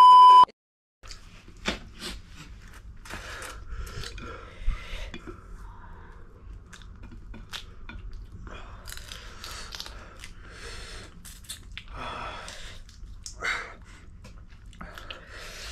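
Close-up eating sounds: chewing and biting on spicy ramen noodles and prawns, with scattered soft mouth clicks. A brief steady beep-like tone sounds right at the start.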